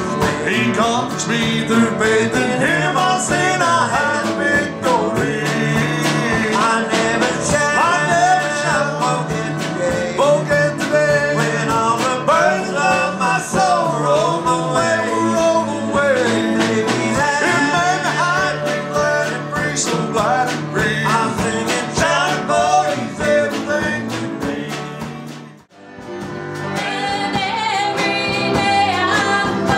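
Country gospel band playing and singing with guitars, keyboard and drums. Near the end the song fades out briefly and a new song with singing starts.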